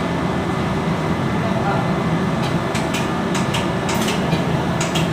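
Steady low machinery hum, with a run of sharp metallic clicks and clinks about halfway through, as of parts and tools being handled during a turbocharger overhaul.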